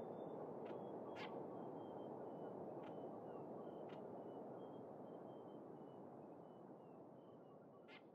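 Faint ambient background sound: a steady low rush with a thin, broken high tone slowly sinking in pitch and a few scattered clicks, fading away toward the end.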